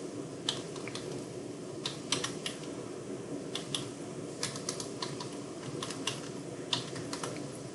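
Typing on a computer keyboard: irregular keystrokes, singly and in short quick runs, over a steady low hum.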